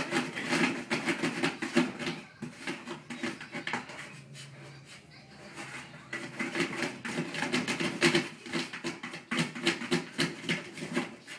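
A small dog's front paws rapidly scratching and batting at a cardboard box, a fast run of scrapes and taps. It eases off for a few seconds around the middle, then starts up again.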